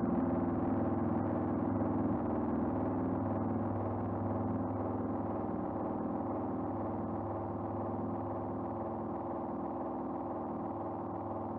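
Ambient synthesizer drone: many steady tones held together, fading slowly.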